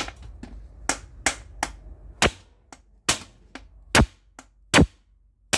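Hammer blows on the iron of a washing machine's bearing housing, driving out a stubborn bearing: about a dozen sharp strikes at an uneven pace of roughly two a second.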